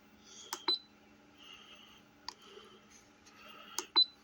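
Control-panel buttons of a 12-volt portable fridge pressed twice, each press a click followed by a short high beep, with a faint steady hum underneath.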